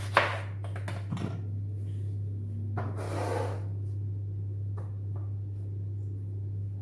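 Knife cutting green beans on a cutting board: a sharp chop just after the start, two lighter taps about a second in, and a brief scraping swish around three seconds in, over a steady low hum.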